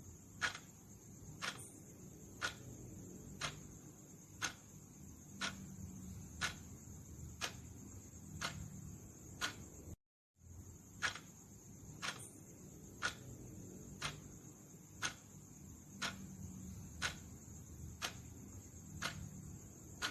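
Clock ticking steadily about once a second over a faint high hiss. The ticking stops for a moment about halfway through, then resumes.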